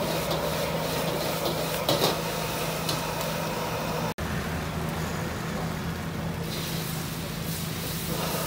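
Gas wok burner running with a steady noise and low hum under a stir-fry. A metal ladle scrapes and clanks against the wok a few times, loudest about two seconds in, over the hiss of food frying.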